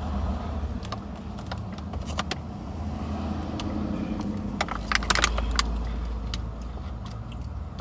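Car interior with a steady low engine rumble. A quick cluster of sharp clicks and rattles comes about halfway through.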